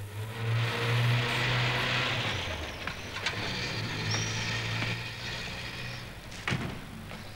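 A car engine idling with a steady hum that fades after about six seconds. A rear door is opened, with a click about three seconds in and a sharper knock near the end.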